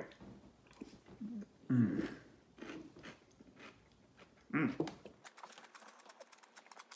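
A person chewing a mouthful of bread and butter pickle with the mouth closed: soft crunching, with a couple of short hums in between. Light clicking near the end.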